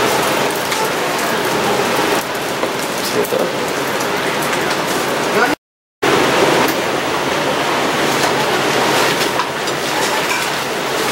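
Steady sizzling hiss of rice crisping in a hot stone bibimbap pot, with voices murmuring underneath. It cuts out briefly about halfway and then resumes.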